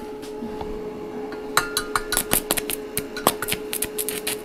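Stick (MMA) welding with a small inverter welder on thin steel: about a second and a half in the electrode arc strikes and crackles with irregular sharp pops and spits.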